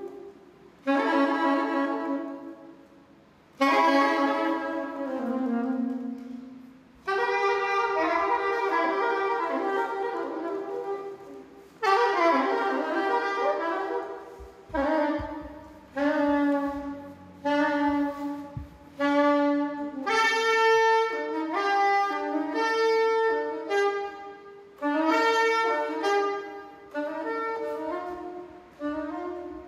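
Unaccompanied soprano saxophone: long swelling notes with pauses between them, then shorter notes in quicker phrases that climb higher in the second half.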